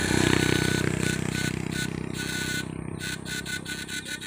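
Backpack electric-fishing unit running with a steady low buzz and a high whine; about halfway through the whine starts stuttering on and off several times a second as the buzz slowly fades.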